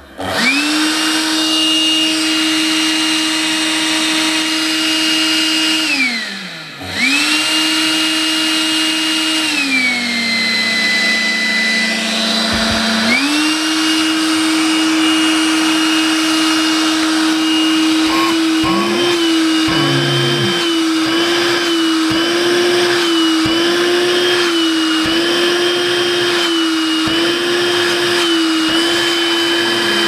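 Makita CL182FD 18V cordless handheld vacuum running with a steady high motor whine after starting with a rising spin-up. About six seconds in it winds down and starts again, then drops to a lower speed for a few seconds before going back up. In the later part its pitch wavers slightly. It has just been overhauled and cleaned, and its running sound is lighter for it.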